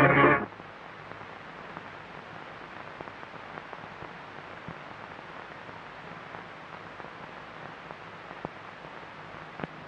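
Music cuts off about half a second in, leaving a steady low hiss with a few faint clicks, the background noise of an old film soundtrack.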